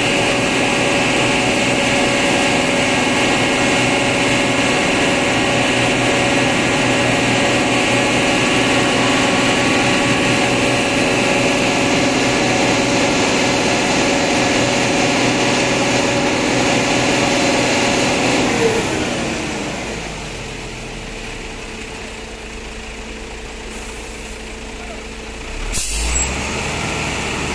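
Concrete mixer truck's diesel engine running at raised revs to turn the drum while concrete is discharged down the chute, then winding down to a lower, quieter idle about 19 seconds in. A brief loud burst comes near the end.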